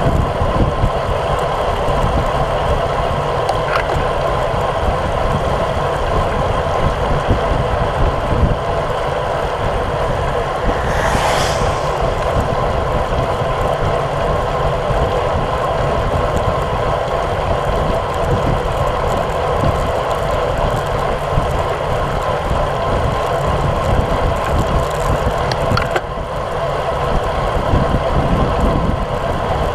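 Wind rushing over a bike-mounted action camera's microphone together with road-bike tyres on damp asphalt at about 32 km/h, a steady rushing noise. A brief hiss stands out about eleven seconds in.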